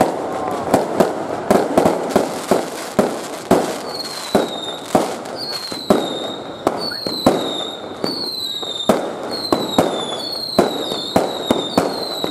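Aerial fireworks going off in a rapid barrage of sharp bangs, about two a second. From about four seconds in, short high whistles that fall slightly in pitch come in with many of the bangs.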